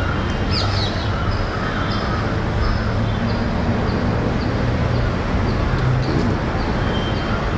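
A small bird chirping over and over, short high notes about two a second, over a steady low rumble.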